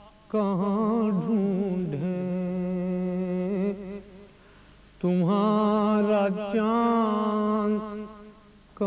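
A man's unaccompanied voice reciting an Urdu salam in a drawn-out, sung style, holding long wavering notes. It comes in two phrases with a short pause between.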